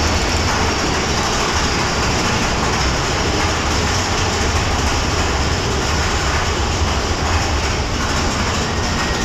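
Big Thunder Mountain Railroad mine-train coaster rolling along its track, heard from on board: a loud, steady rumble of the cars on the rails.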